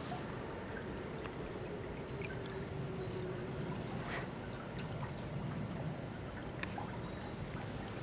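A small, shallow grassy stream flowing, its water running steadily over the bed with a few faint ticks and splashes.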